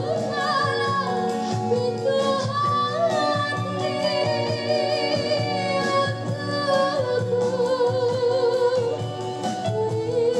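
A woman singing a slow song live, holding long notes with vibrato, backed by an amplified band of electric guitars, bass and drums.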